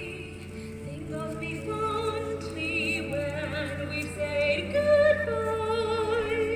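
A singer holding long notes with wide vibrato over musical accompaniment.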